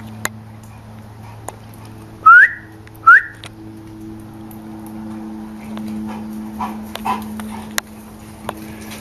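Two short, high animal squeals that rise in pitch, about a second apart and loud, over a steady low hum.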